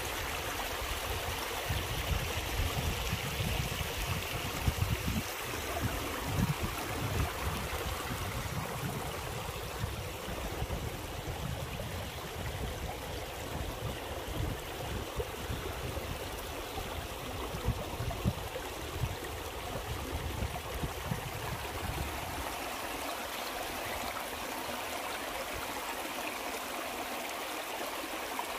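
Shallow river water flowing over stones, a steady rushing trickle, with an irregular low rumble underneath that stops about three-quarters of the way through.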